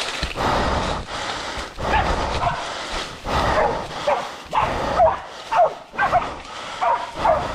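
Hunting dogs barking and yelping over and over as they bail a boar, a few short calls each second. Under them, dry leaf litter and scrub crunch and rustle underfoot.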